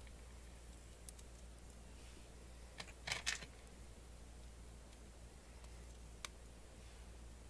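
Plastic clicks as a blue LEGO Technic pin is pressed into the end hole of a black bent liftarm: a quick cluster of clicks about three seconds in, with a single click near the end, over a faint low hum.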